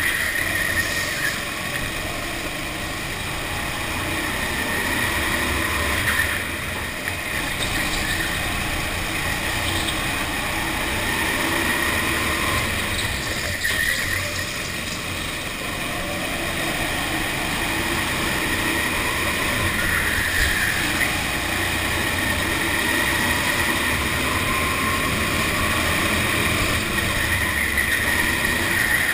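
Go-kart's motor running at speed through a lap, heard from on board, easing off in the tight corners and picking up again on the straights.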